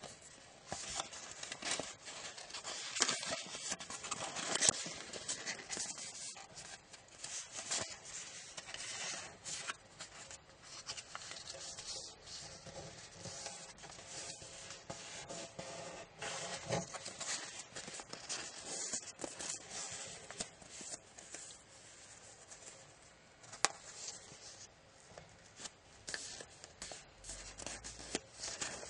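Origami paper being folded and creased by hand: irregular rustling and crinkling of the sheet, with a few sharp crease snaps, the loudest about five seconds in and again about 24 seconds in.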